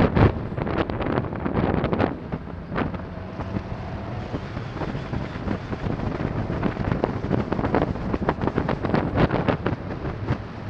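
Wind buffeting the microphone of a helmet-mounted camera in uneven gusts, over the steady running of a Honda VFR1200's V4 engine.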